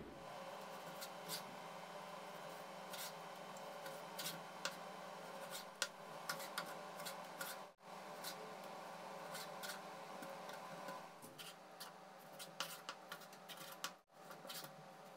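Chef's knife slicing raw pork into strips on a wooden cutting board: faint, irregular taps and scrapes of the blade through the meat and against the board, over a steady faint hum.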